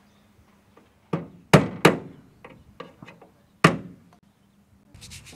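Hammer blows on the truck's metal step and bodywork: about seven uneven strikes, each ringing briefly, the loudest two coming close together about a second and a half in and another near four seconds. A short rubbing scrape starts near the end.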